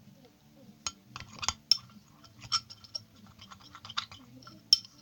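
A spoon clinking and scraping against a bowl in irregular taps while stirring a thick slime mixture of glue and baking soda as it firms up.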